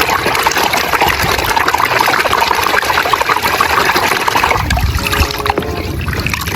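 Water running and splashing over a muddy toy as it is rinsed and scrubbed clean, easing off about four and a half seconds in.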